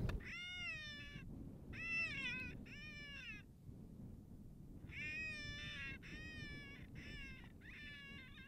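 Electronic predator call playing a looped animal distress cry: a run of short, wavering, falling, meow-like cries repeated at an even pace, three, then a short pause, then four more, heard at some distance.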